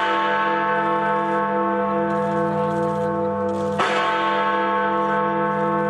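Recorded sound of Big Ben, the Great Bell of the Palace of Westminster, striking eleven o'clock. One new stroke lands about four seconds in, and each stroke rings on with a slowly wavering hum beneath the bell's tones.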